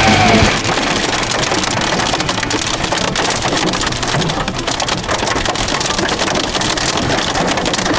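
Hail hitting a moving car's roof and windscreen, heard from inside the cabin: a dense, continuous clatter of many small impacts over a steady rushing noise.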